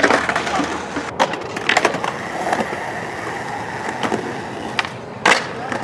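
Skateboard wheels rolling on concrete with a steady noise, broken by scattered clacks of boards and one loud sharp clack about five seconds in.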